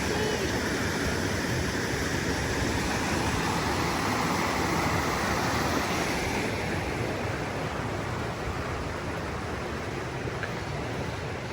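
Rushing water of a creek in flood, a steady noisy rush with no distinct events; it grows a little quieter and duller about halfway through.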